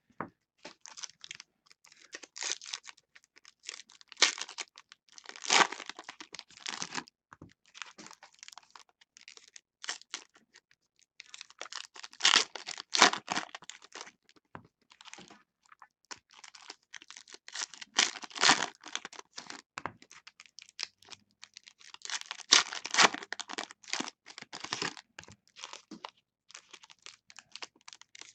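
Foil wrappers of Panini Contenders baseball card packs being torn open and crinkled by hand, in irregular spells of crackling a second or two long with quieter gaps between.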